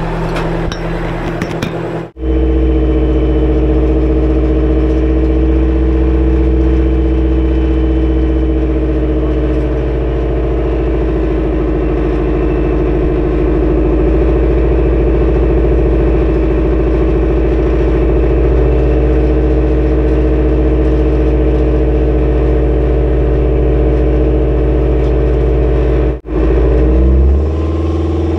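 The M1070 HET truck's diesel engine running steadily while the truck drives, heard close to its exhaust stack. Near the end the pitch rises as it accelerates.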